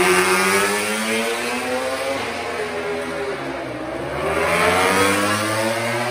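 MotoGP racing motorcycle engine at high revs on track. Its pitch falls over the first few seconds as it slows, then rises again as it accelerates, loudest right at the start and again about five seconds in.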